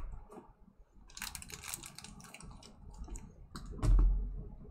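Scattered light clicks and taps, with a louder dull knock a little before the end.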